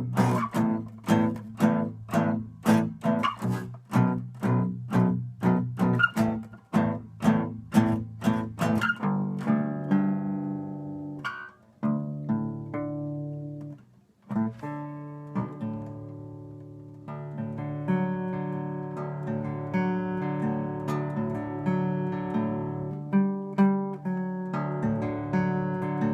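Agile Renaissance eight-string guitar being played: quick strummed chords with sharp, evenly repeated strokes for the first nine seconds or so. Then slower ringing chords and picked notes that are left to sustain.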